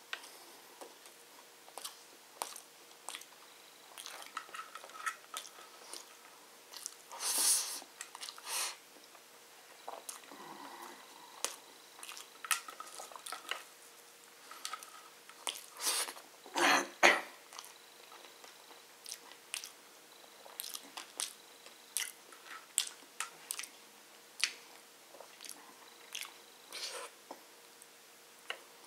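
A person chewing a mouthful of biryani rice and chicken close to the microphone: irregular wet chewing and lip-smacking clicks, with a few louder smacks about seven and seventeen seconds in.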